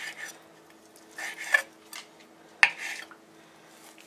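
Knife slicing through a grilled New York strip steak on a wooden cutting board: short scraping strokes near the start and about a second and a half in, then a sharp click about two and a half seconds in followed by more scraping.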